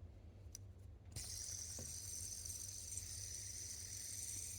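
A faint click, then the titanium fidget spinner's bearing whirring with a steady high hiss as it spins freely after a flick.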